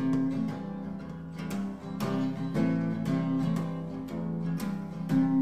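Background music played on acoustic guitar, picked and strummed notes.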